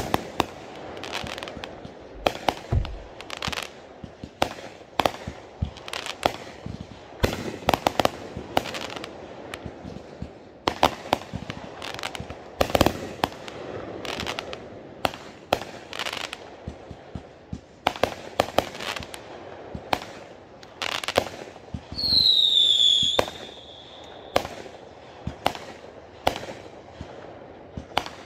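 Consumer aerial fireworks going off in a long run of sharp bangs and pops, irregularly spaced and sometimes several a second. About three-quarters of the way through, a loud whistling firework sounds for about a second, falling slightly in pitch.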